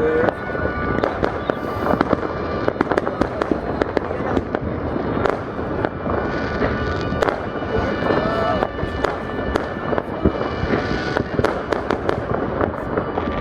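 Fireworks going off in a dense, continuous barrage: many sharp bangs over steady crackle and rumble, with music playing underneath.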